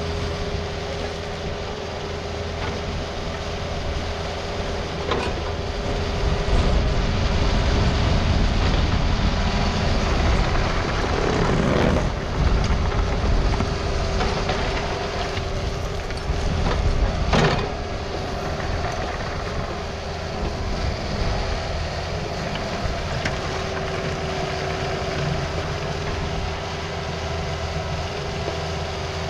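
Takeuchi TB260 mini excavator running as it works gravel with its bucket: a steady engine rumble with a steady whine, getting louder from about six seconds in to about eighteen seconds, with a few sharp knocks of the bucket and rock along the way.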